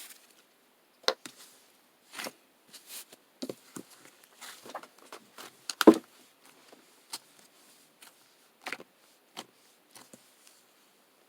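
Irregular handling noises: scattered clicks, taps and rustles, with one sharper knock about six seconds in.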